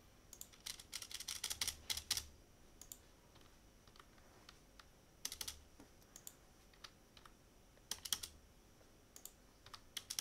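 Computer keyboard keystrokes in short clusters of quick taps separated by pauses, as lines of code are re-indented with the Tab key.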